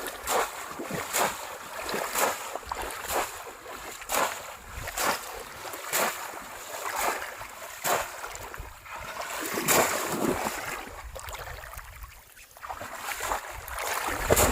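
Shallow rice-field water splashing and sloshing again and again, in short irregular splashes about once a second, as a bamboo polo trap is worked through it.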